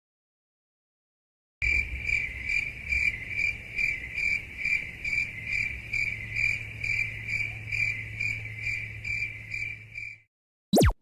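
Crickets chirping in a steady run of pulses, about two to three a second, over a low hum: the meme sound effect for an awkward silence. It starts after a short silence, stops about a second before the end, and is followed by a very brief falling swoosh.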